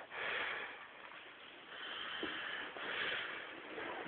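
Loud snoring: a run of rasping, breathy snores without a clear tone, one about every second.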